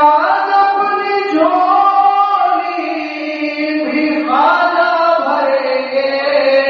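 A single voice singing an unaccompanied devotional chant in long, drawn-out notes that step up and down in pitch. There is a short breath near the middle before a new phrase begins.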